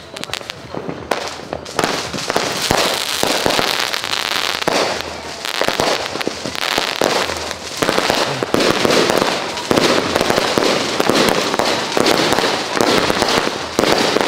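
Ground-launched consumer fireworks firing shot after shot: a dense run of sharp pops and crackles that thickens about two seconds in and grows louder from about eight seconds.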